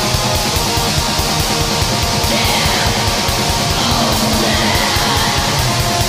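Black metal: loud, distorted electric guitars over fast, steady drumming.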